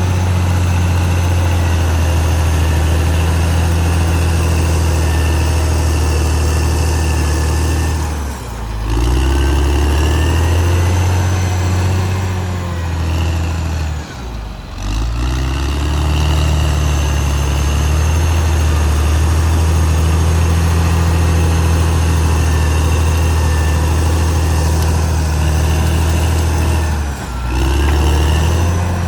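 Caterpillar D6R XL bulldozer's diesel engine running hard and steadily, with a high whine over it. The engine note dips briefly three times, about eight seconds in, around fourteen seconds and near the end, each time recovering within a second or two.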